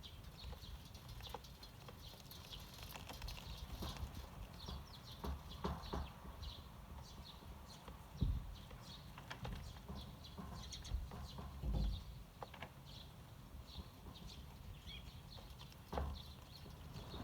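Eurasian tree sparrows chirping, many short, scattered notes, with a few low thumps about a third, two thirds and near the end of the way through.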